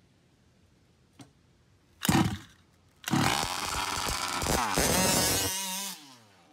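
Nitro RC car's two-stroke glow engine revving: a short blip, then a longer run of rising and falling revs as it takes off, ending with the pitch dropping as it pulls away.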